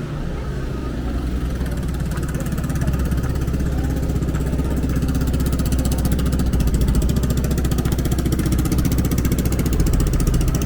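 A vehicle engine idling close by, a fast even run of firing pulses, growing slowly louder.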